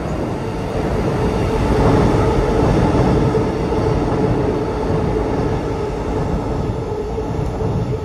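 A train passing over a steel railway bridge overhead: loud rumbling noise with a steady whine, building over the first two seconds.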